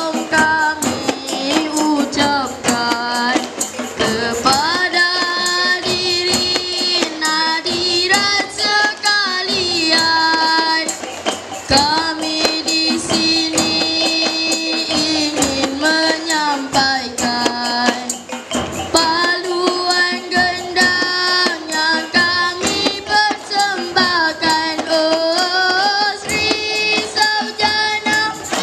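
Children singing a melody together to live traditional Malay percussion: hand-struck frame drums (rebana), larger drums and small hand cymbals keeping the beat.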